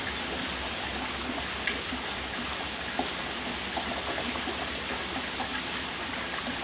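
Steady splashing of water flowing into a concrete fish pond, with a couple of faint ticks about two and three seconds in.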